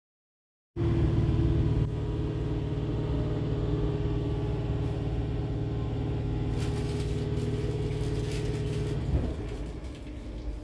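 Merseyrail electric train heard from inside the carriage: a steady low hum and rumble that cuts in abruptly just under a second in, with clicking from about six and a half seconds in. The hum drops off about nine seconds in.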